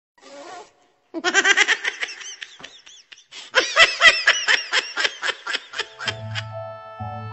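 Two long runs of high-pitched laughter in rapid ha-ha pulses, the second louder. About six seconds in, a light music cue with a bass line begins.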